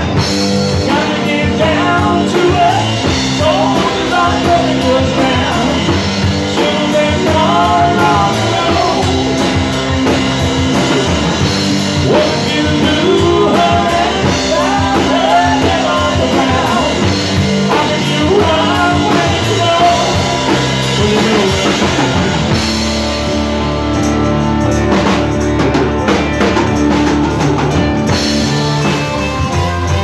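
Live rock band playing: two electric guitars and a drum kit with a lead vocalist singing over them. The singing stops about 22 seconds in and the band carries on without vocals.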